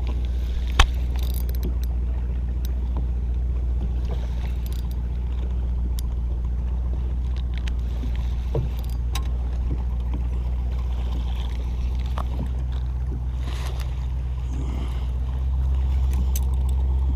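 Boat's outboard motor running steadily at low speed, a constant low drone that grows a little louder near the end. A few sharp clicks of fishing tackle being handled come over it.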